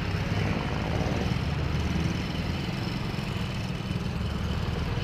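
Motorcycle engine of a Philippine tricycle (a motorcycle with a sidecar) running steadily while riding, heard from on board as a low, fast-pulsing drone.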